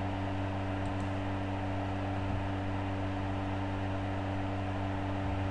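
Steady low electrical hum with an even hiss over it, unchanging throughout, with no other events.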